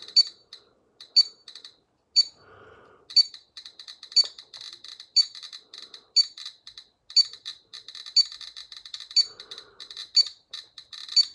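GQ GMC-500+ Geiger counter's high-radiation alarm beeping about once a second. Between the beeps come rapid ticks of detected counts, thickening after about three seconds. The alarm is set off by beta radiation from a uranium ore sample held close to the tube, at around 2.4 microsieverts per hour and 360 counts per minute.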